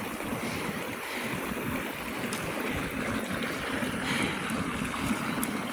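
Floodwater flowing steadily, a constant rushing wash of water.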